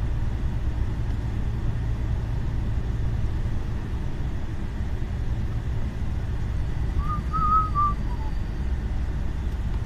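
Lorry engine and tyres droning steadily, heard inside the cab while driving. About seven seconds in, a brief whistle of a few notes lasting about a second.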